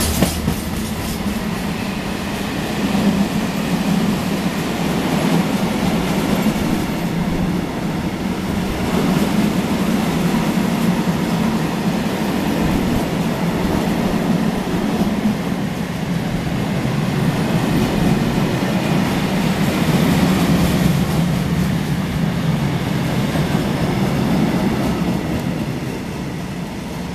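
Freight train's high-sided wagons rolling past at speed, a steady loud rumble of wheels on rail with clickety-clack over the joints. The sound drops off near the end as the last wagon passes.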